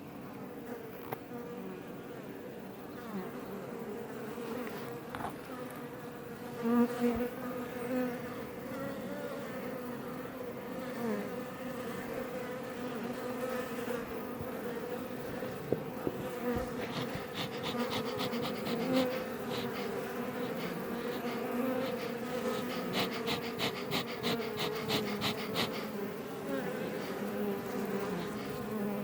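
Iberian honey bees buzzing around a Langstroth hive entrance: a steady, many-voiced hum whose pitch wavers as single bees fly close past. Stretches of fast clicking join in about two-thirds of the way through and again near the end.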